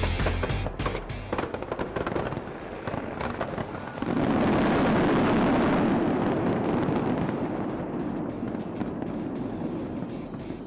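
Fireworks popping and crackling in quick strikes over background music. About four seconds in, a sudden loud rushing roar sets in, holds for a couple of seconds and then slowly fades.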